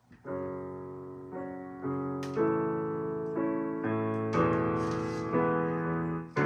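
Solo piano playing slow sustained chords, a new chord struck about every half second to a second, each ringing on and fading until the next.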